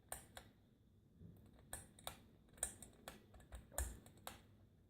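Light-kit pull-chain switch of a Hampton Bay Carriage House II ceiling fan being pulled over and over: a series of faint, irregularly spaced clicks.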